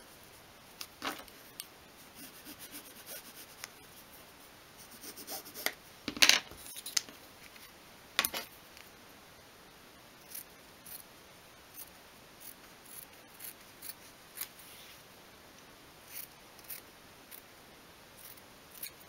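Small embroidery scissors snipping fabric, a run of short, light snips about one a second in the second half. Before that comes rustling and crinkling as the fabric and card are handled, loudest about six seconds in.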